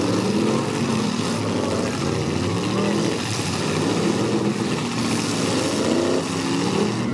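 Several V8 engines in stock demolition-derby cars revving up and down at once, the pitch of each rising and falling unevenly as the cars drive and manoeuvre.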